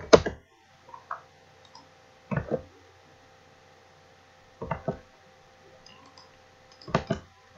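Computer mouse and keyboard clicks in short clusters of two or three quick clicks, about every two seconds, over a faint steady hum.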